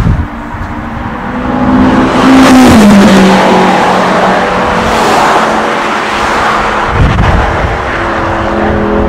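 McLaren 650S GT Sprint's twin-turbo V8 race engine accelerating hard past and away, loudest about two to five seconds in, its pitch dropping as it goes by. A steadier engine note comes in near the end.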